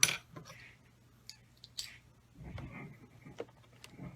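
Handling of plastic model kit parts and tools on a workbench: a sharp snap at the start, then scattered light clicks and taps.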